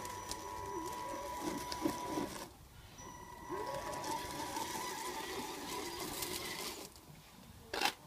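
Whine of an Axial SCX-10 RC crawler's electric motor and gearbox, its pitch wavering with the throttle; it stops for about a second partway through and cuts out again near the end, where there is a short loud noise.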